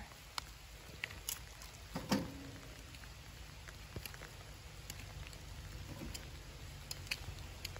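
Sparse, quiet clicks and light knocks as cassava roots are handled and piled onto the metal pan of a dial spring scale, with one slightly louder knock about two seconds in.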